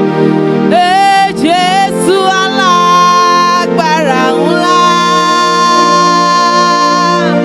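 Worship music: sustained keyboard chords, with a wordless lead melody that slides and wavers between notes before holding a long note.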